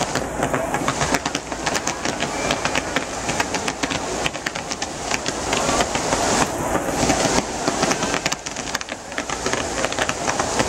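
Set-piece ground fireworks burning as a cascading waterfall of sparks, giving a continuous hiss with dense, rapid crackling.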